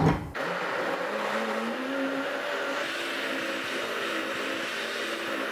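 Electric countertop blender running steadily, liquidising stale bread soaked in milk and condensed milk for a bread pudding batter. It starts about half a second in, and its motor whine rises slightly about two seconds in.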